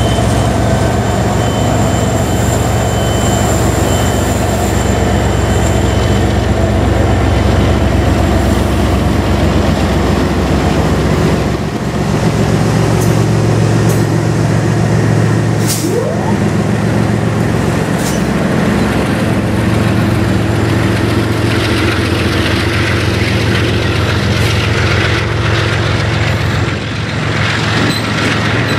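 GE GEVO diesel locomotive's engine chugging under heavy load as the freight pulls away slowly, with the loaded centerbeam lumber cars rumbling past on the rails.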